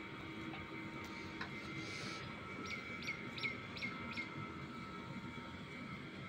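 A small bird gives five quick chirps about halfway through, each falling in pitch, over a steady mechanical hum.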